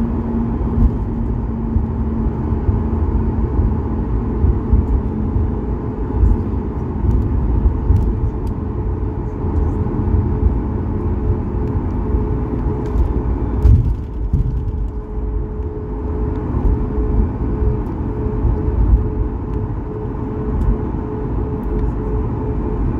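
Cabin noise of a Boeing 737-8200 taxiing: a steady low rumble from the engines at taxi power and the rolling airframe, with a faint steady hum over it.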